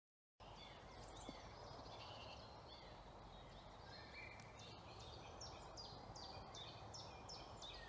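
Faint woodland dawn chorus: several birds singing at once, overlapping whistles and chirps over a low outdoor hiss. From about five seconds in, one bird repeats a quick series of short down-slurred notes.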